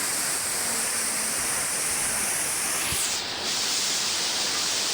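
Waterfall: a steady rush of falling water whose tone shifts slightly about three seconds in.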